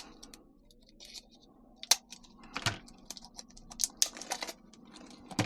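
Scattered light clicks and short rustles of small plastic parts being handled: new paintball marker grips being freed from cut zip ties and their protective pieces.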